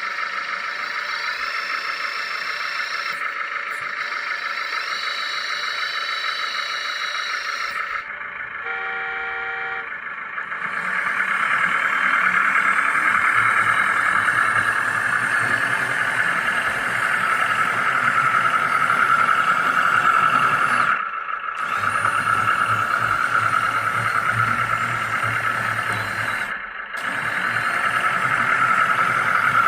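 Lesu MC15 RC hydraulic excavator's hydraulic pump whining steadily. It gets louder and heavier after about ten seconds and cuts out briefly twice near the end, as the machine is worked under load. A short pitched tone sounds about a third of the way in.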